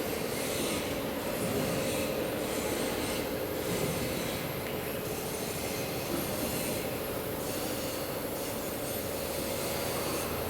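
Steady industrial machinery noise: a constant hum with a hiss above it, unbroken throughout.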